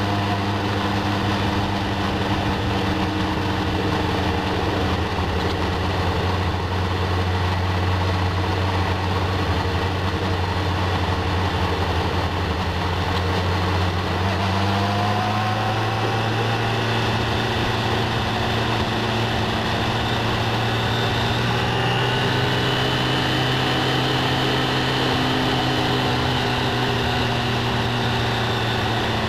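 Yamaha FJR1300's inline-four engine running steadily under way, heard on board with wind noise. About halfway through the engine note rises in pitch as the bike picks up revs, and it holds at the higher note.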